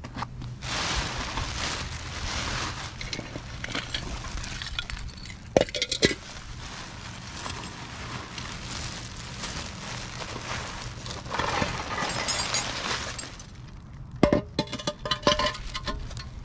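Clear plastic bag of packing material crinkling as it is opened and handled, with sharp clinks of the broken pieces of a vintage ceramic Christmas tree knocking together and on concrete: two clinks about five and six seconds in, and a quick cluster of them near the end.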